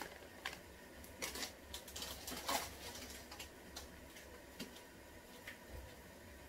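Scattered light ticks and rustles, densest in the first three seconds, as a small packet is shaken out over a pot of instant noodles in water, then sparser small pops from the pot.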